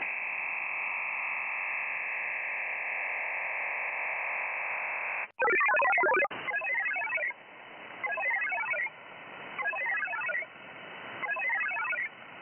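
VARA HF modem audio on a single-sideband radio channel: steady radio hiss with a faint tone for about five seconds, then a loud burst of multi-tone data followed by four shorter, fainter data bursts about every one and a half seconds. These are the closing handshake of a Winlink session as the link disconnects.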